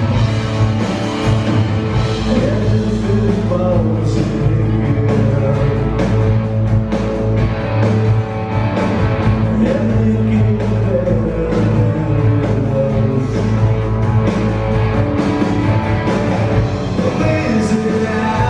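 Rock band playing live, loud and steady: electric bass guitar with drums, the bass heavy in the mix.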